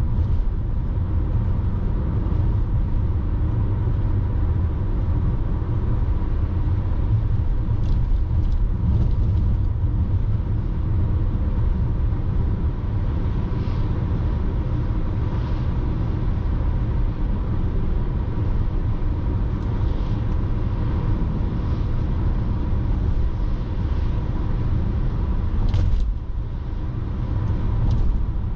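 Steady low rumble of a car driving along the road: engine and tyre noise, with a few faint ticks.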